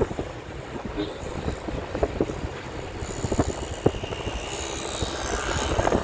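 Vehicle on the move: a steady low rumble of road and wind noise, with scattered short knocks and a hiss that grows stronger about halfway through.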